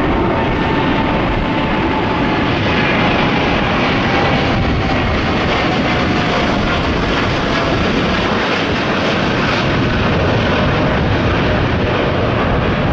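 Japan Airlines Boeing 787's twin GEnx turbofans at takeoff/climb thrust just after liftoff, a loud steady rumble. Faint whining tones slowly fall in pitch as the jet climbs past overhead.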